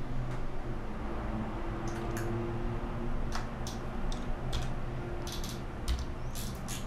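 Scattered sharp clicks of a computer mouse being worked at a desk, a few at a time and closer together near the end, over a low steady hum.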